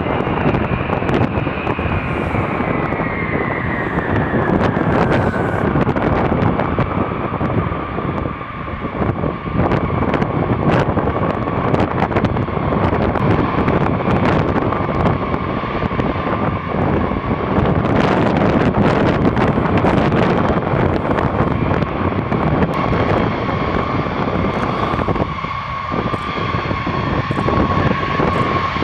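B-52H bombers' TF33 turbofan engines running as the bombers taxi. A high turbine whine falls in pitch over the first several seconds, then holds steady over a constant rumble.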